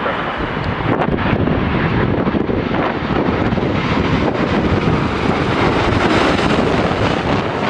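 Gusty wind buffeting the microphone, with jet airliner engine noise swelling through the middle and later part.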